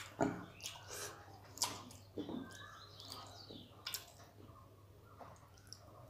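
Eating rice and fish curry by hand from a steel plate: fingers mixing and squishing the food, a few sharp clicks against the plate, and chewing.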